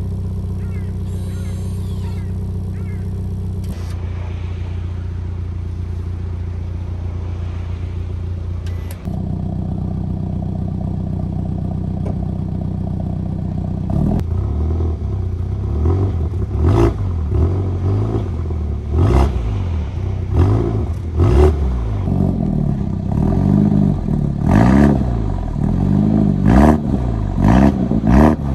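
BMW M135i's 2.0-litre turbocharged four-cylinder, cold, idling steadily through a Remus sport exhaust with the exhaust valve closed. About halfway through it is revved in repeated short throttle blips, each rising and falling, with the exhaust valves open by the end.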